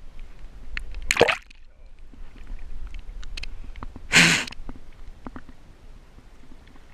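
Kayak paddle strokes splashing and dripping water beside an inflatable kayak, with scattered small drips and clicks. There is a short splash about a second in, and a louder brief scuffing burst about four seconds in as a hand handles the camera.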